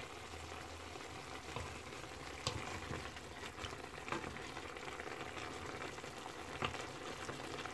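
Chicken wings and pork pieces simmering in a shallow layer of boiling water in a nonstick pan, a steady bubbling hiss, while a wooden spoon stirs them and knocks lightly against the pan several times.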